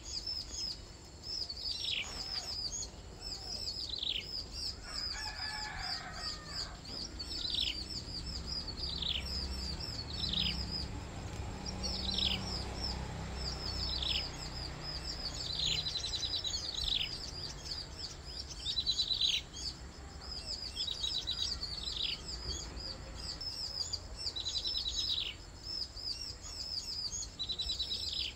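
Small birds calling: a thin, high call that drops sharply in pitch, repeated every second or two, with a few short rapid trills mixed in, over a faint low rumble.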